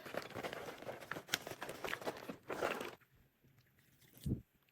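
Freeze-dried cat treats being crumbled over bowls of cat food: dense crunching and crackling for about three seconds, then it stops, with one soft thump near the end.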